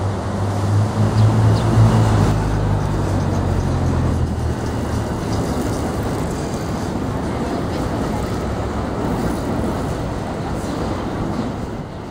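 A New York City Q subway train moving along the elevated viaduct, mixed with road traffic passing on the street below. A low hum fills the first few seconds and stops about four and a half seconds in, leaving a steady rushing noise.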